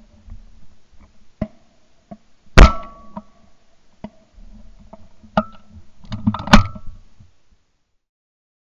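Two loud shotgun shots about four seconds apart from a 20-bore Beretta Silver Pigeon over-and-under, each with a short ring, and several fainter cracks of shots in between.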